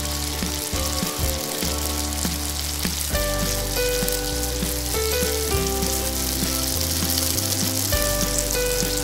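Falafel balls deep-frying in hot oil: a steady sizzle, with background music underneath that comes up about three seconds in.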